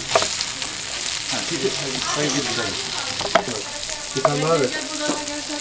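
Sliced onions sizzling in hot oil in a wide metal pan, stirred with a spatula that gives a couple of sharp scrapes against the metal.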